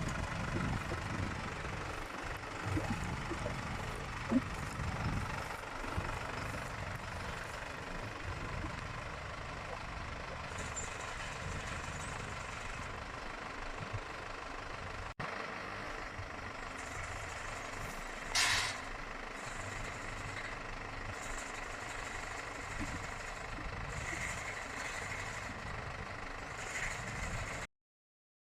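Engine running steadily under a bale loader at work, loading bales onto a truck. A short loud hiss comes about two-thirds of the way in, and the sound cuts out abruptly near the end.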